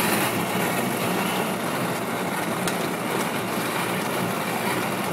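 A Power Wheels toy Jeep, converted to remote control, driving along: its electric drive motors whir and its hard plastic wheels roll over asphalt in a steady, even noise.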